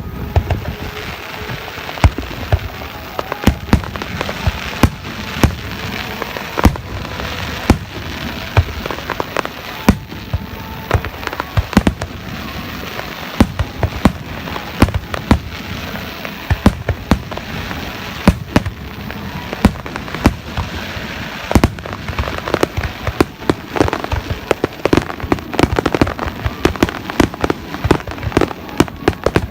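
Fireworks display: aerial shells going off in sharp bangs one after another over a continuous crackle, the bursts coming thicker and faster near the end.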